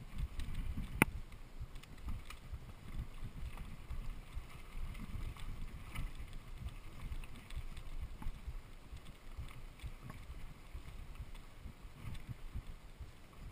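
Mountain bike riding over a rooty dirt trail: a steady low rumble of the bike jostling over the ground mixed with wind buffeting the microphone, with scattered small ticks and rattles and one sharp click about a second in.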